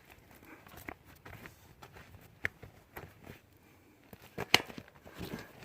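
Scattered small clicks, taps and rustles of hands working on a bicycle wheel and repair gear, with a sharper click about four and a half seconds in.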